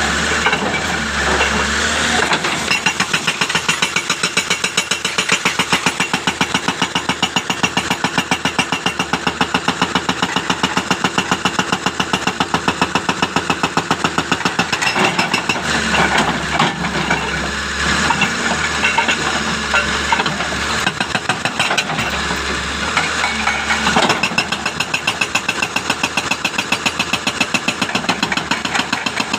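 Hitachi jackhammer pounding in a rapid, steady rhythm, with an engine running underneath that grows stronger for a few seconds in the middle.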